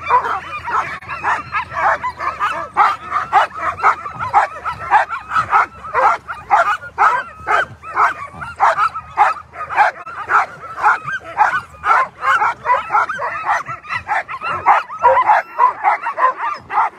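A team of Alaskan husky sled dogs barking over one another in rapid, overlapping calls without a pause: the clamour of a team held at a race start, eager to run.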